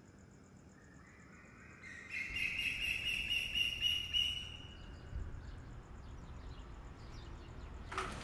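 Night ambience: crickets chirping steadily, joined about two seconds in by a bird's chirping call that fades out a few seconds later. Near the end a louder, noisier sound cuts in.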